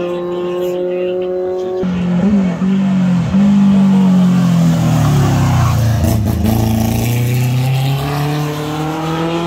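Race car engine at high revs passing close by: the engine note falls as the car goes by, then climbs steadily as it accelerates away.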